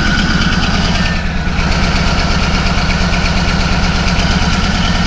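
Caterpillar D11 bulldozer's diesel engine idling steadily with a fast, even throb, running on its first start after sitting for five months.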